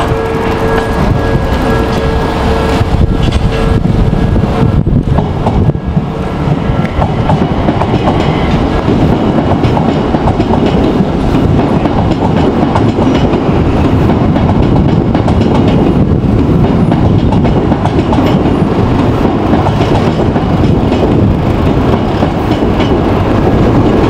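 A Japanese level-crossing alarm rings for the first few seconds. Then an Odakyu Line electric commuter train runs past the crossing close by, a loud, steady rumble of wheels on the track.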